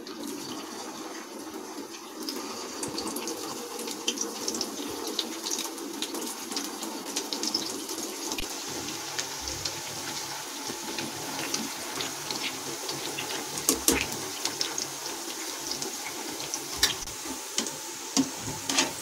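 Poha and potato cutlets deep-frying in hot oil in a kadai: a steady sizzle full of crackles and pops, getting louder and busier about two seconds in. A few louder clicks stand out near the middle and toward the end.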